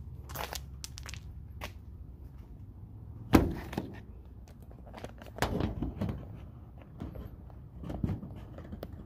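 Handling noises: a sharp thunk about three and a half seconds in, then more knocks and clatter, over a low hum.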